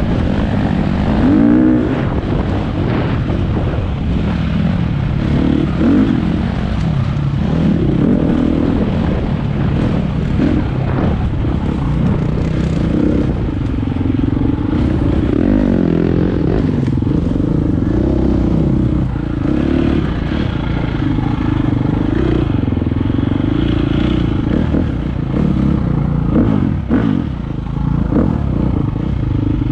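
Four-stroke single-cylinder dirt bike engine under way on a trail, its revs rising and falling constantly as the rider works the throttle through the bends, then holding steadier in the last third.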